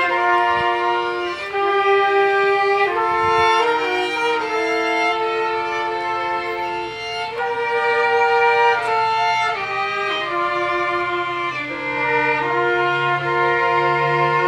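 Small live ensemble of two violins, trumpet and keyboard playing a slow sacred melody in long held notes, the violins leading. A low keyboard bass line comes in during the last few seconds.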